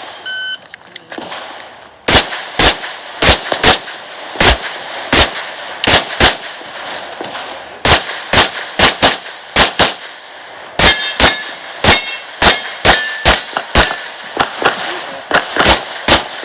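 A shot timer's start beep, then a rapid string of pistol shots from a Glock 34 Open-division race gun, fired in quick pairs and strings for the rest of the stage. Steel targets ring with a clang after several hits in the middle of the string.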